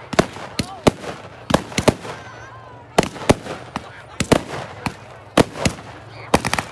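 Fireworks going off: an irregular string of sharp bangs and pops, about two to three a second, some in quick pairs.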